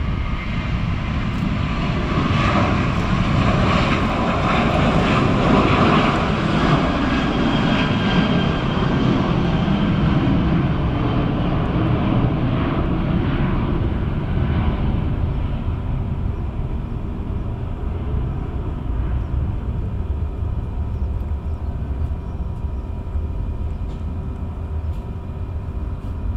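Boeing 737-800 jet airliner's CFM56-7B turbofan engines at takeoff thrust as it lifts off and climbs away. The loud jet noise, with steady whining fan tones, swells over the first few seconds and then slowly fades as the aircraft recedes.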